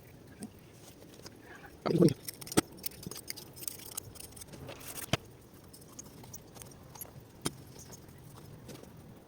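Small metal engine parts being handled and set down: scattered sharp clicks and clinks, with a brief louder rattle about two seconds in.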